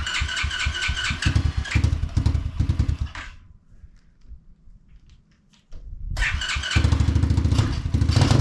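A 125cc dirt bike engine running with an uneven pulse, then cutting out about three seconds in. After a short pause with a few clicks it is started again a little under six seconds in and keeps running steadily.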